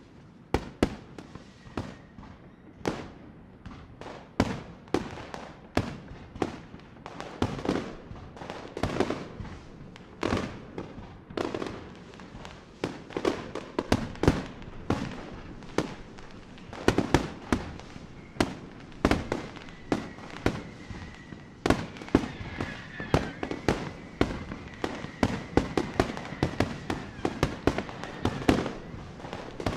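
Fireworks display: an irregular, dense string of sharp bangs from aerial shells bursting, often several a second, with a faint high whistle a little past the middle.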